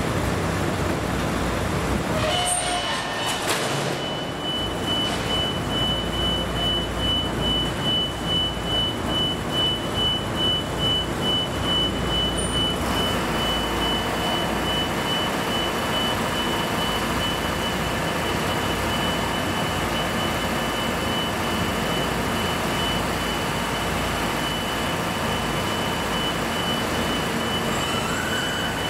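Vehicle engines running with a steady low rumble, with a few knocks about two seconds in. A high electronic beep tone starts about two seconds in and later turns into a rapid pulsing beep, like a vehicle's warning or reversing beeper.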